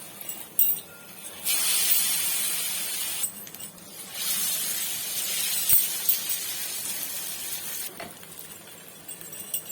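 Pieces of colocasia-leaf rikwach sizzling as they are laid into hot mustard oil in a pan: two loud bursts of sizzle, the second slowly dying down, with a few light clinks of a utensil against the pan near the start and end.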